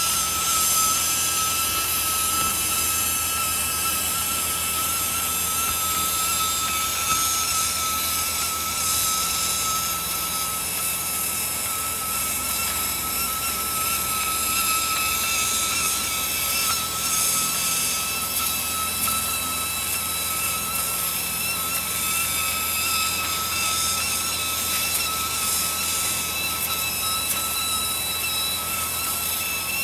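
Fiber laser marking machine cutting through thin metal sheet: a steady hiss with a constant high whine and a low hum underneath.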